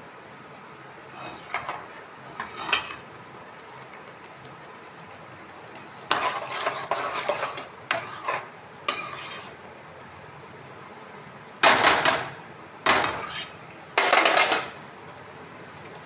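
Metal spoon scraping and clinking against a cooking pan while stirring, in irregular bursts with pauses; the loudest strokes are three sharp scrapes near the end. A faint steady hiss sits underneath.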